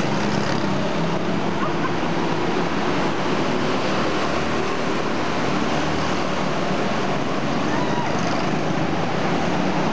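Several go-kart engines running as karts lap the track, a steady, unbroken noise with no single pass standing out.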